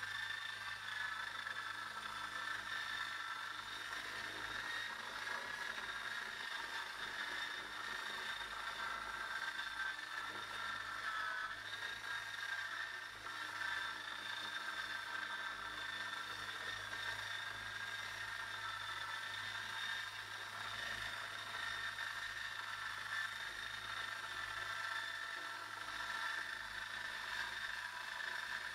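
Esky Lama V4 coaxial RC helicopter with Xtrèm motors in flight, its electric motors and twin rotors giving a steady high whine. The pitch dips briefly about twelve seconds in.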